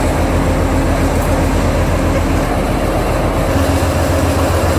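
Bulldozer's diesel engine running steadily under load, with a low rapid pulsing whose note shifts about three and a half seconds in.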